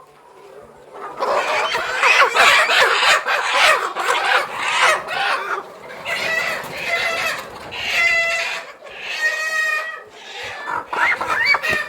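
A flock of 16-week-old laying pullets clucking and squawking loudly, many birds at once, starting about a second in, with several longer, drawn-out calls near the end.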